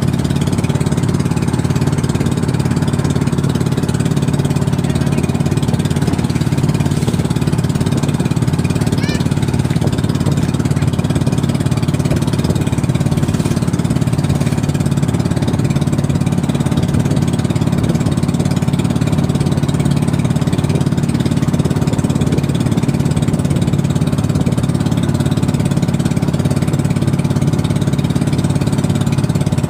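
Small engine of a motorized outrigger boat (bangka) running steadily at an even pitch while the boat is under way.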